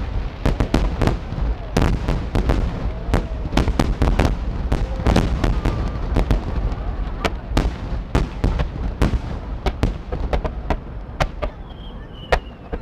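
Aerial fireworks going off in a rapid barrage: many sharp bangs and crackles a second over a continuous low rumble of booms.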